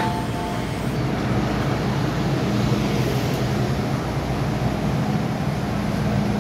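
The last two notes of an MTR train's door warning chime fade out just at the start. After that comes the steady hum and rumble of an MTR M-Train's traction equipment and ventilation.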